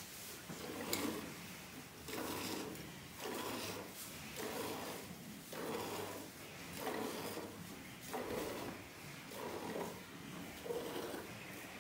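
Milk squirting into a partly filled steel pail as a cow is milked by hand: a regular run of short spurts, about one a second.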